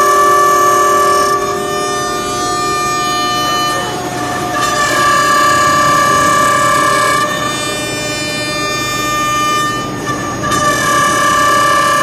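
CNC router's horizontal milling spindle whining steadily as it routes into the edge of a wooden door for a lock or hinge cut-out, with the tone and loudness changing in steps every three seconds or so as the cut moves on.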